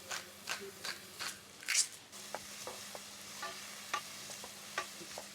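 Red onions frying in coconut oil in a pan, stirred with a utensil scraping across the pan in quick strokes, about three a second. After about two seconds the stirring stops and a steady sizzle with a few light clicks goes on.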